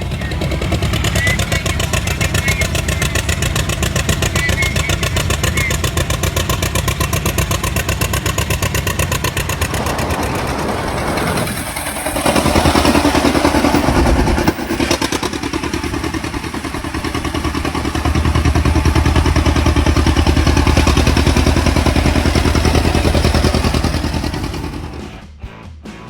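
1947 John Deere M tractor's two-cylinder engine running with a steady, rapid firing beat. The engine note shifts and gets louder about halfway through, with a brief dip soon after, and it fades out near the end.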